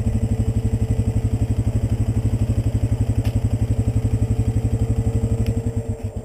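Polaris Sportsman 400 ATV's single-cylinder four-stroke engine idling close by, with an even beat of about a dozen pulses a second. It is shut off about six seconds in, the beats slowing briefly before it stops.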